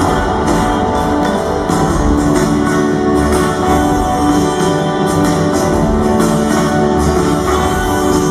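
Live rock band playing, with strummed guitar to the fore, in a passage without vocals.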